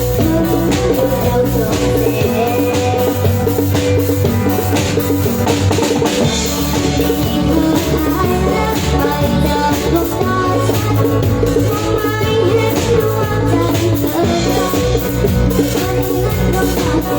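A live band playing a song at a sound check, with a drum kit keeping a steady beat under sustained bass notes.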